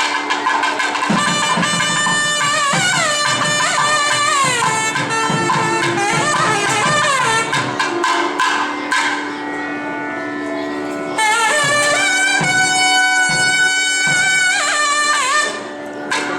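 Temple procession music: a loud reed pipe plays a sliding, ornamented melody over a steady drone, with drum strokes underneath. The melody pauses for a couple of seconds in the middle, leaving the drone alone.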